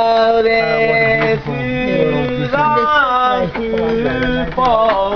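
A boatman singing as he rows a canal boat, a man's voice holding long notes that slide from one pitch to the next.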